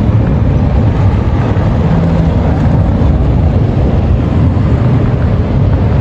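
Steady low rumble of a car on the move, road and engine noise, with wind buffeting the microphone.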